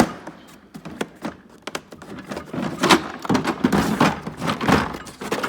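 Tools and plastic cases being handled in a toolbox drawer: a sharp click at the start, then a run of clicks, knocks and rustling that gets busier in the second half.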